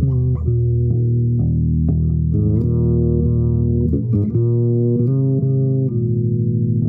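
Solo improvised melody on a low-pitched string instrument, with held notes, some sliding into the next.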